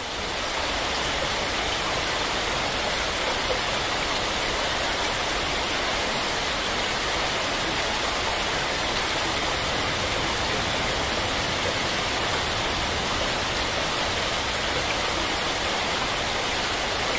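Heavy rain pouring down in a steady, dense rush, fading in over the first moment.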